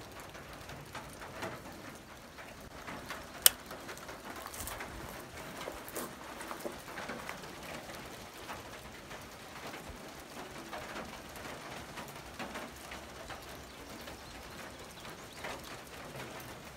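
Quiet outdoor background with faint bird calls, broken by a single sharp click about three and a half seconds in.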